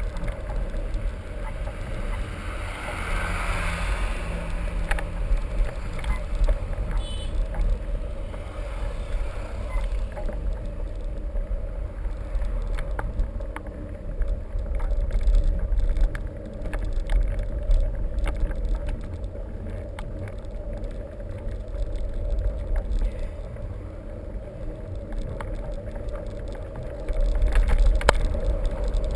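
Steady low wind rumble on the microphone while moving, with many scattered short rattles and knocks throughout.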